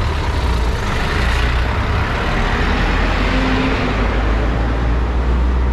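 A truck driving past close by: a steady low engine rumble, with the noise of its passing swelling about halfway through and then easing off.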